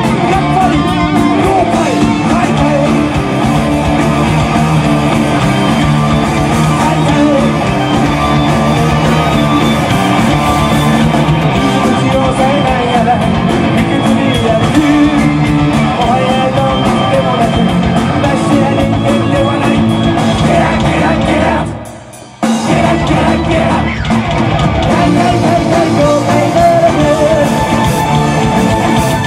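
A visual-kei heavy metal band playing loud live rock, with electric guitar and drums under a male vocalist singing into a microphone. About two-thirds of the way through, the music falls away for under a second, then the whole band comes back in at once.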